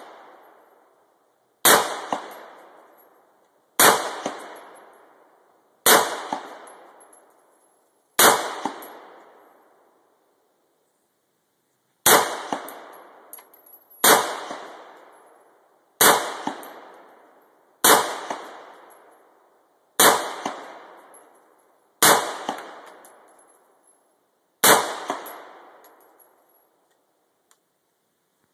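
Colt AR-15 heavy-barrel rifle fired shot by shot: eleven sharp cracks, mostly about two seconds apart with a longer pause about a third of the way through, each followed by about a second of echo dying away.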